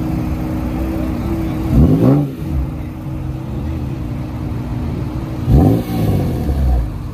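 Car engine idling with a steady note, revved sharply twice: about two seconds in and again near six seconds, each rev rising quickly and falling back to idle.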